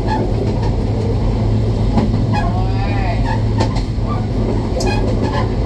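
Diesel train running along the track, a steady low engine drone under the rumble of the wheels on the rails, with scattered sharp clicks.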